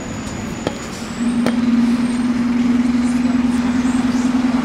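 Scania N230UD double-decker bus heard from on board while driving: engine and road noise with a couple of sharp rattles near the start, then a steady hum that comes in about a second in and holds at one pitch.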